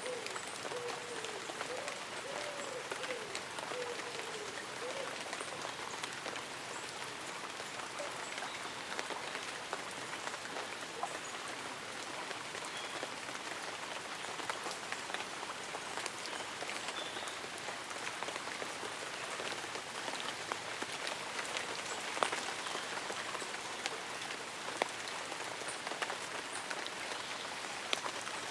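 Light rain falling on leaves and an umbrella: a steady hiss of rain with many small, scattered drop taps.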